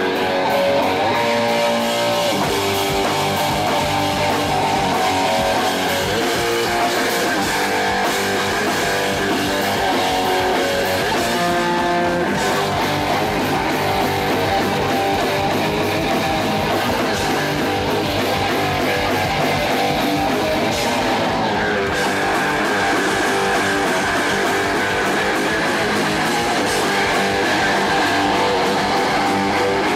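Punk band playing live, led by electric guitar chords, loud and steady throughout.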